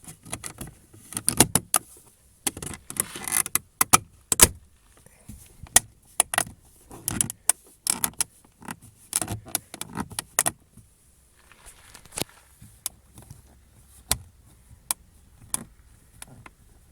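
Lada Vesta door pull handle being handled, with many sharp plastic clicks and clacks at irregular intervals. Even with its joints sprayed with silicone, the handle still clicks and creaks when twisted.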